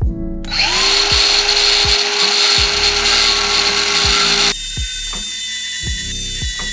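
A power tool motor spins up about half a second in, runs steadily with a hiss, and cuts off abruptly about four seconds later, over background music with a steady beat.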